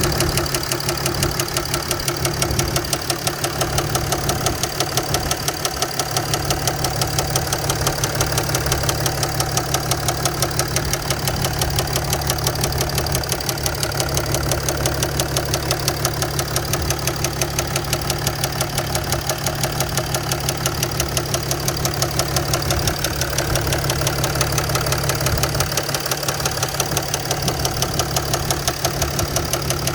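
Mercedes-Benz ML350 BlueTec's 3.0-litre V6 diesel idling with a rapid, even knocking, presented as an engine knock fault.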